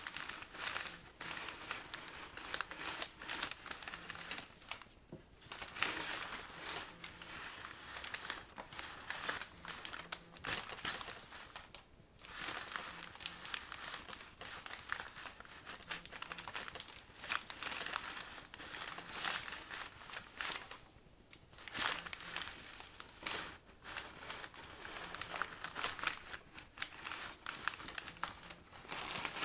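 Brown paper bags crinkling and rustling as they are handled and slid over one another: an irregular run of crackles with short pauses about five, twelve and twenty-one seconds in.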